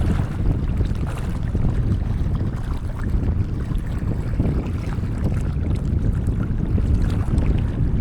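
Strong wind buffeting the microphone: a steady, uneven low rumble.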